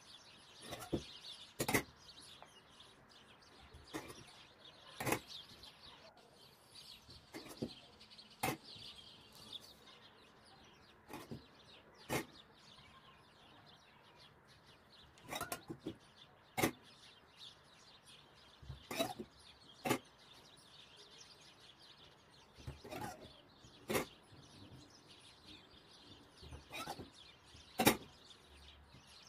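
Irregular soft smacks and sharp clicks of hands folding and pressing butter-soaked yufka dough sheets down onto a wooden table, about twenty over the span, unevenly spaced.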